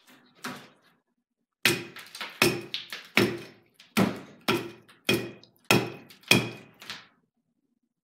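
An axe head on a broken half-length handle, used as a hatchet, chopping into the top of a split, dried ash log: about nine sharp blows, roughly one every two-thirds of a second, each with a brief ring.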